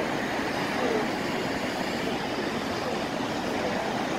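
Steady road traffic noise from a busy city avenue, with faint voices of passers-by.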